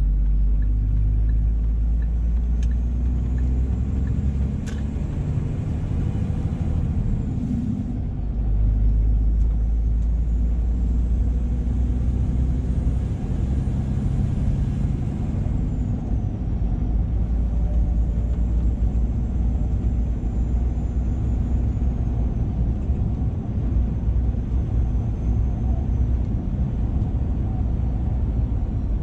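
The diesel engine of a 2007 Scania R480 truck, heard from inside the cab, running steadily under way. Its loudness dips briefly about seven seconds in, and a faint high whine rises and falls above it.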